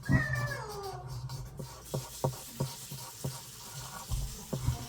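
A cat meowing once, a long call falling in pitch, followed by a series of light taps and clicks and a couple of dull bumps.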